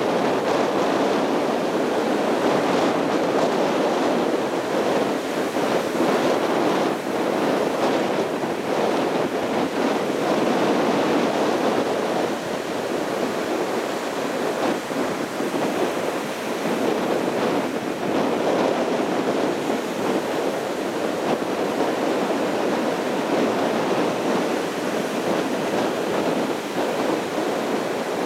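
North Sea surf breaking on a sandy beach: a steady, continuous rushing wash of waves.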